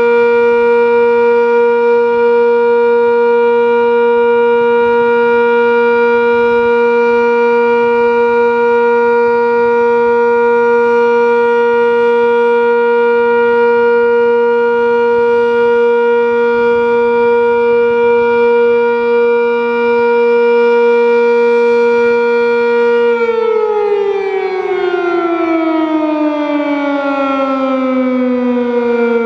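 Sentry 10V outdoor warning siren sounding a steady alert signal: a loud, held multi-note chord. About 23 seconds in it begins winding down, the chord sliding lower in pitch.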